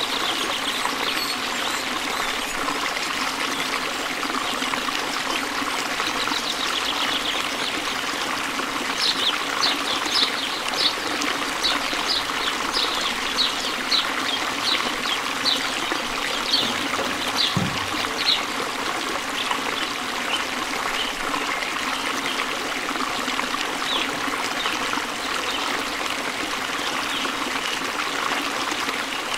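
Steady trickle of running water, with ducklings peeping: a run of short, high peeps about two a second through the middle, then a few scattered peeps later.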